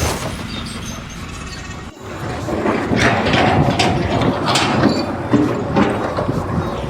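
Mechanical clattering and knocking, with an abrupt change about two seconds in to a louder, busier stretch of irregular knocks.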